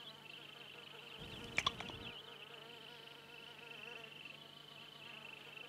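Faint, steady, high-pitched buzzing of insects, with a couple of brief clicks about a second and a half in.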